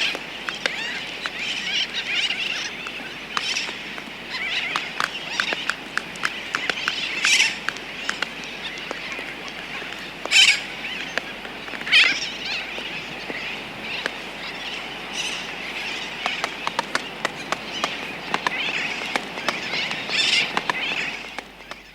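Laysan albatross clicking in quick, irregular runs close by, with a few loud sooty tern flight calls cutting in and a tern colony chattering steadily in the background. The recording fades out at the end.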